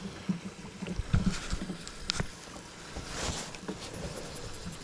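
Handling noises in a fishing boat: scattered light knocks, taps and rubs as a rod and reel are handled, with a brief rush of noise about three seconds in.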